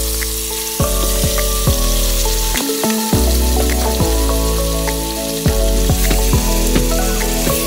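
Background music with sustained chords and a bass note struck every couple of seconds, over pieces of marinated meat and chicken sizzling as they brown in hot oil in a pot.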